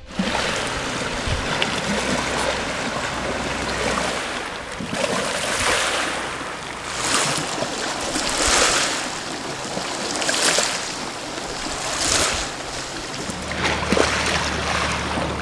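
Small waves washing onto a pebble beach: a steady hiss that swells every one and a half to two seconds as each wave comes in.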